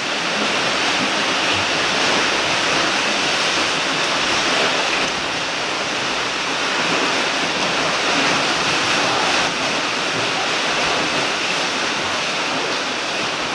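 Steady rushing water noise, like surf on a rocky shore, with no distinct splashes.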